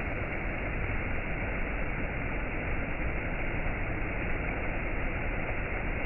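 Steady rushing of a waterfall: an even, muffled noise with no tones or beats.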